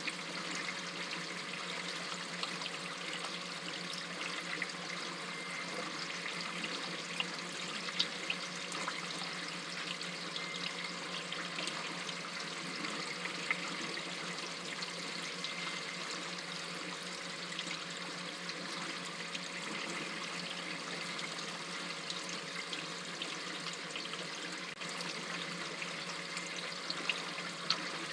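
Water trickling and splashing steadily down through the filter media into an aquarium sump, with scattered sharper drips.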